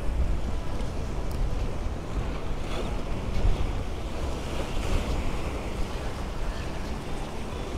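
Wind buffeting the microphone in a steady low rumble, over the wash of small choppy waves on open water.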